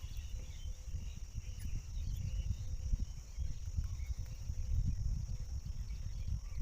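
Outdoor ambience: low, gusty wind rumble on the microphone, with a steady high-pitched insect drone and a few faint bird chirps.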